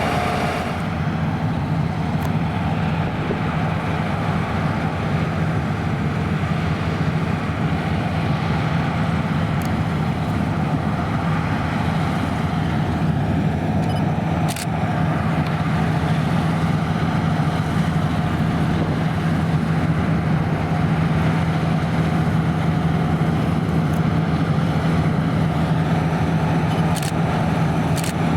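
Claas Lexion 580 Terra-Trac combine harvester running steadily while combining barley, a constant engine hum over the noise of the machine.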